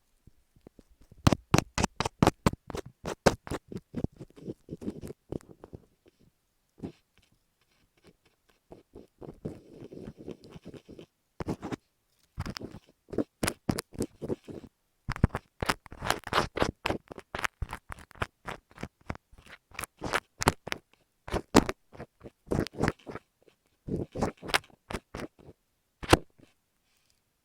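Close-miked ASMR scratching and scraping strokes on an earphone microphone, coming in quick runs of several strokes a second with short pauses between them.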